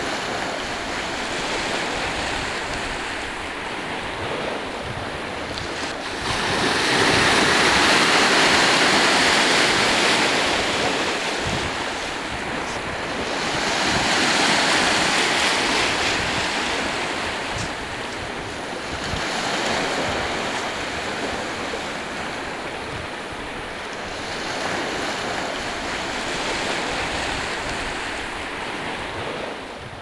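Small waves breaking and washing up over a shallow sandy shore: a steady hiss of surf that swells and fades every five or six seconds, the loudest surge about a quarter of the way in.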